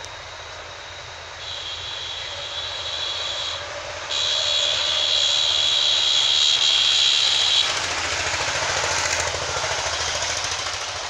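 Engine of a log-carrying truck running steadily, with a high steady whine that comes in about a second and a half in and is loudest from about four seconds until nearly eight, then gives way to a louder rushing noise.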